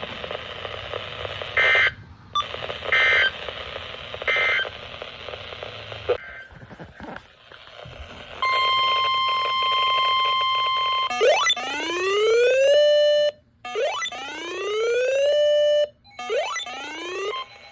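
Weather radio receiver: broadcast hiss with three short bursts of digital data tones, the EAS code that closes a warning message. After a pause comes a steady electronic alert tone for about two and a half seconds, then three rising siren whoops, the radio's alarm going off for a new severe weather warning.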